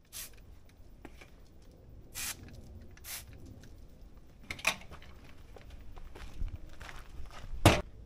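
Footsteps crossing a metal grate at a swing-gate boot-cleaning station, with several sharp clacks, the loudest near the end.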